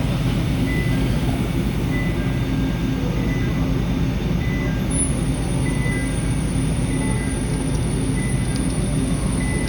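Hurco CNC milling machine running: a steady mechanical hum with faint short tones repeating about once a second. A thin high whine starts about halfway through and holds.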